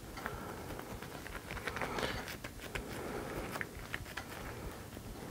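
Gloved hands packing and shaping raw ground pork sausage meat into a patty in a disposable aluminium foil pan: soft handling noise with scattered light clicks and crinkles.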